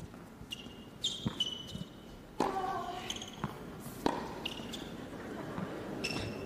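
Tennis rally on an indoor hard court: several sharp racket-on-ball hits with short, high sneaker squeaks on the court surface between them, and a player's grunt on a shot about two and a half seconds in.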